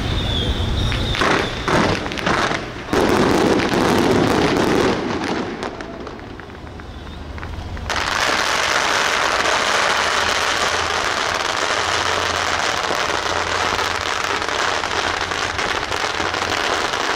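Firecrackers going off: scattered sharp bangs in the first few seconds, then from about eight seconds in a dense, continuous crackle.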